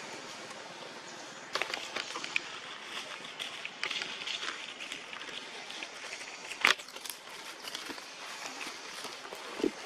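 Dry leaf litter crackling and rustling in scattered sharp clicks over a steady outdoor hiss, starting about a second and a half in. One louder crack comes about two-thirds of the way through, and a short dull thump near the end.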